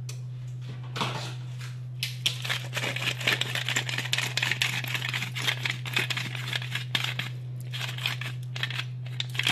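Hand-held grinder being twisted to grind seasoning onto tomatoes: a rapid run of gritty crunching clicks, starting about two seconds in and stopping near the end, over a steady low hum.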